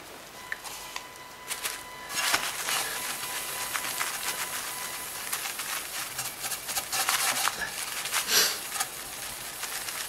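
Fine steel wool with metal polish scrubbed back and forth over the corroded aluminium hood of a Kirby vacuum cleaner: a rapid, scratchy rasping in quick strokes that starts about two seconds in, as the oxidation is rubbed off.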